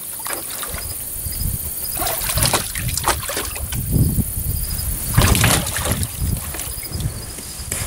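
Border Collie wading in a stock tank of water, sloshing and splashing as it plunges its head and paws in after goldfish, with several sharper splashes, the loudest about five seconds in.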